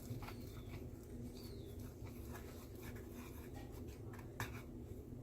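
Slime mixture being stirred in a bowl: irregular small scrapes and clicks, over a steady low background hum.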